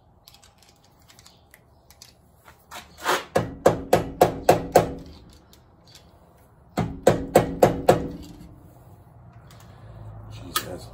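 DeWalt impact wrench run in two bursts of about two seconds each, its motor tone under a rapid string of sharp clacks, with a nut stuck in the socket.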